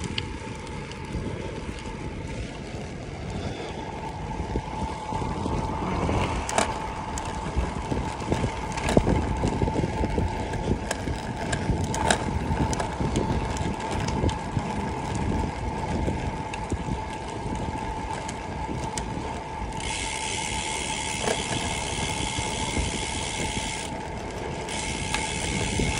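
Bicycle rolling fast on a paved road: wind rushing over the microphone and tyre noise, with a steady thin whine and a few sharp knocks from bumps.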